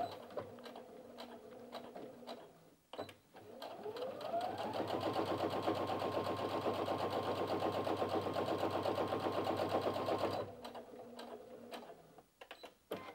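Brother Innov-is F420 computerised sewing machine stitching a seam through eight layers of denim. After a quieter start and a click, its motor whine rises as it speeds up about four seconds in, runs steadily with rapid needle strokes, and stops suddenly, followed by a few clicks.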